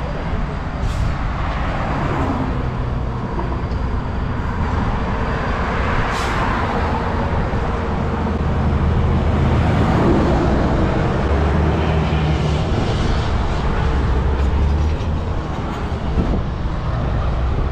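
Heavy diesel truck engines running with a steady low rumble, getting somewhat louder about halfway through, among open-air highway noise.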